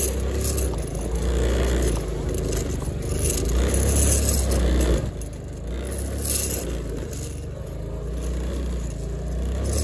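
Motor scooter's small engine running as it rides over a snowy, muddy track, louder for the first five seconds and quieter after that.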